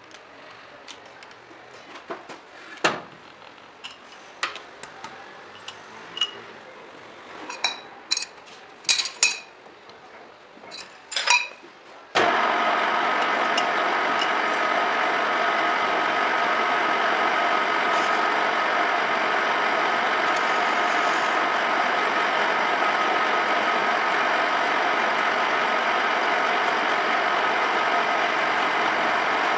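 Metal lathe: sharp metal clicks and knocks while the steel bar is fitted in the jaw chuck and the tailstock centre brought up, then about twelve seconds in the lathe starts abruptly and runs steadily, spinning the bar between chuck and centre with an even hum and a faint steady high tone.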